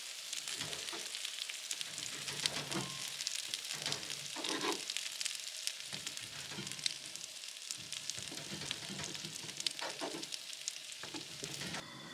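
Meat sizzling as it cooks over high heat, a steady hiss full of small crackles and pops. Just before the end it drops away to a quieter, steadier sound.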